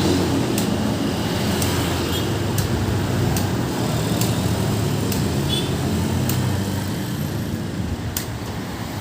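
A road vehicle's engine running and slowly fading as it pulls away, with sharp ticks roughly once a second over it. No musical horn sounds.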